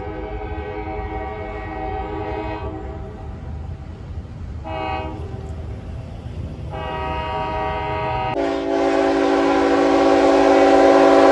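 Freight locomotive's air horn sounding the grade-crossing signal: a long blast, a short one, then a long one. The last blast is held as the locomotive comes up close: about three quarters of the way in it drops in pitch, and loud engine and rail noise swells under it.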